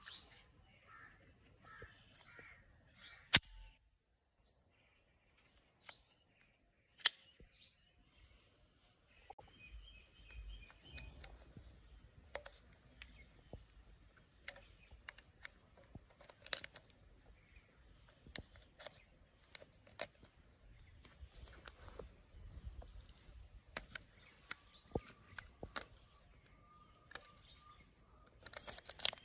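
Glock 43 pistol and magazine being handled: scattered small metallic clicks and snaps, with two sharper snaps about four seconds apart. Birds chirp faintly in the background.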